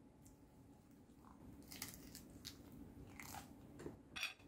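Faint crunchy chewing of a mouthful of lettuce leaf wrapped around crispy salad, with a few sharp crunches in the second half.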